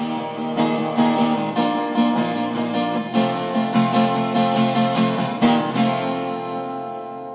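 Outro music: an acoustic guitar strumming chords in a quick even rhythm, ending on a last chord left ringing and fading away.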